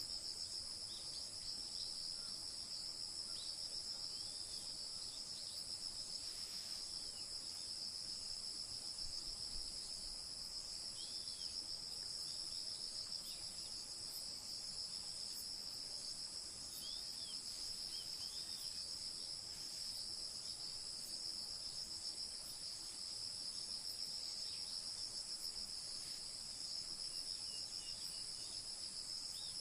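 Steady, high-pitched chorus of insects trilling without a break, with a few faint short bird chirps scattered through it.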